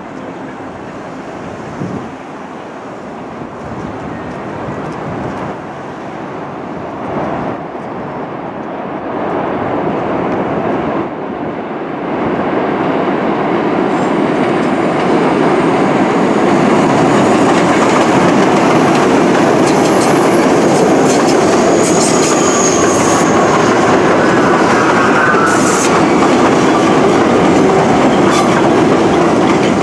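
Bombardier R62A subway train on elevated steel track approaching and pulling into the station. The rumble and clatter of its wheels over the rails grows steadily louder for about fifteen seconds, then holds, with a faint wheel squeal in the second half.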